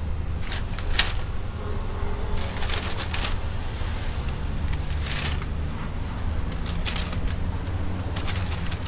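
Short rustles and light clicks, several times, as a gloved hand picks walnut cakes out of a stainless mesh strainer and drops them into a paper bag. A steady low machine hum runs underneath.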